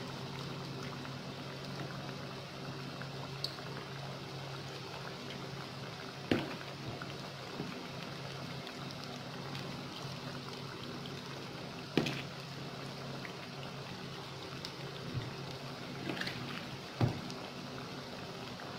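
Hot oil sizzling and bubbling in a metal frying pan as spoonfuls of gram-flour pakora batter are dropped in. A few sharp clinks of the spoon against the pan, the loudest about six and twelve seconds in, over a steady low hum.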